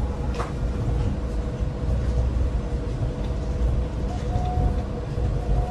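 Monorail car running along its elevated guideway, heard from inside the cabin: a steady low rumble with a thin steady whine, and a second, higher whine coming in about four seconds in.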